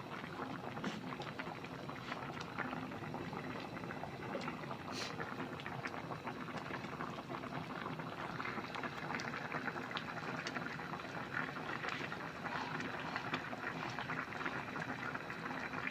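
Pot of Thai red curry with coconut milk, beef and eggplant boiling, a steady dense bubbling full of small pops.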